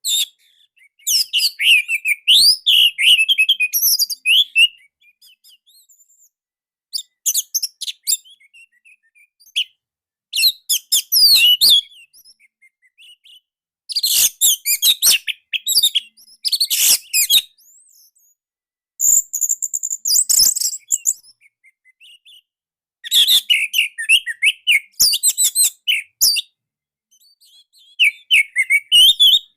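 Orange-headed thrush singing short, loud, tightly packed phrases of quick varied whistles, in about seven bursts separated by pauses of a second or two.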